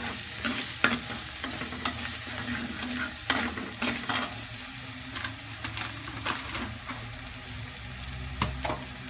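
A steel spoon stirring onions and tomatoes frying in oil with turmeric and chilli powder in a clay pot. The masala sizzles steadily, and the spoon makes irregular scrapes and clicks against the pot.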